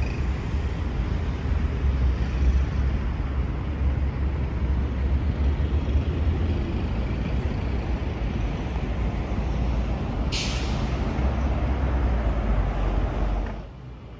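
Busy city-street traffic: a steady rumble and wash of passing vehicles, with a sharp hiss from a heavy vehicle's air brake about ten seconds in. The noise drops away suddenly near the end.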